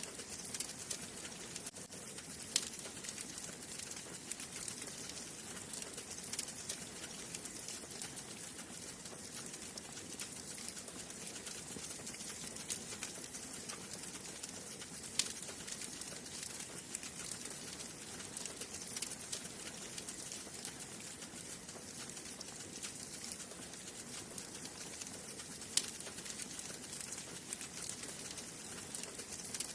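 Wood fire burning in a fireplace: a steady hiss of flames with dense small crackles and a few louder, sharper pops from the burning logs.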